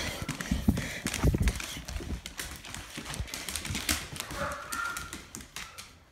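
A large dog's claws clicking and tapping on a hardwood floor as it moves about playing, with several low thumps in the first second and a half.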